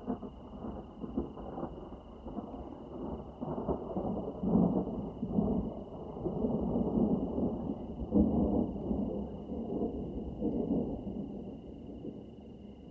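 Rolling thunder: a long low rumble that builds up, swells several times, and eases off near the end.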